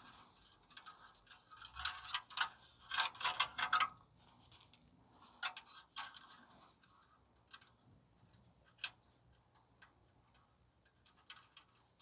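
Light metallic clicks and taps from hand work on loose exhaust heat shields and worm-gear clamps, with a quick run of clicks about two to four seconds in, then scattered single clicks.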